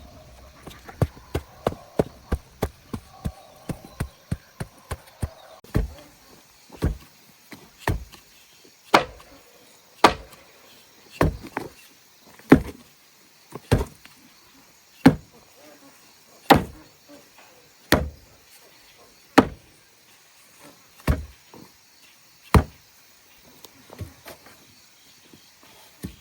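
Chopping: a blade strikes repeatedly, first with quick light taps for about five seconds, then with heavy single blows about every one and a half seconds.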